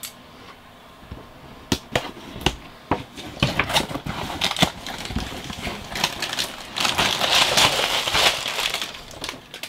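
A cardboard LEGO set box being opened: a few sharp snaps as the box tabs are broken, then a long stretch of rustling and crinkling as the plastic bags of parts are pulled out and handled.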